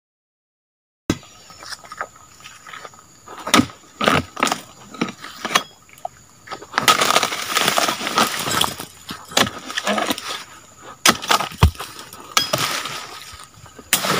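Oil palm harvesting chisel (dodos) chopping into the frond bases and bunch stalk of a low oil palm: a run of sharp, cracking strikes beginning about a second in. Twice there is a longer rustling crash of palm fronds.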